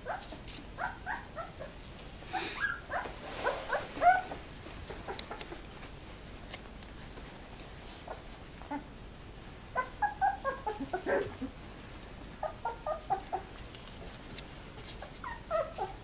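Two-week-old Labrador Retriever puppies whimpering and squeaking: short high cries in several clusters, with pauses between.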